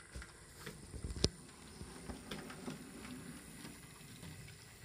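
Model 0-6-0 steam locomotive running slowly along the layout's track: a faint motor hum with small ticks from the wheels over rail joints, and one sharp click about a second in.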